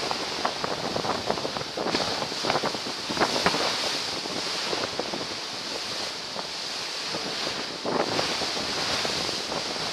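Churning white water rushing and splashing against an aircraft carrier's hull as it heels in a hard high-speed turn, with repeated irregular splashes, mixed with wind buffeting the microphone.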